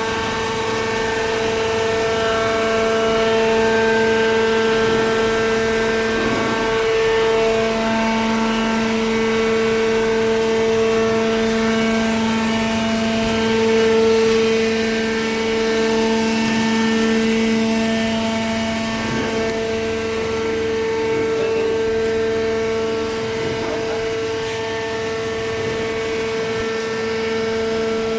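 Steady machine hum with several constant whining tones that swell and fade over a few seconds: a vertical cardboard baler's hydraulic power unit running.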